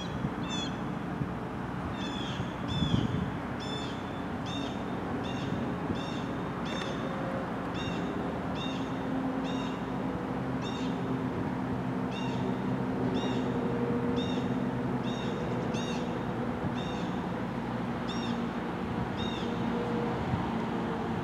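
Freight train of loaded trash containers rolling slowly past with a low steady rumble, under a high-pitched squeak that repeats about every half second to second.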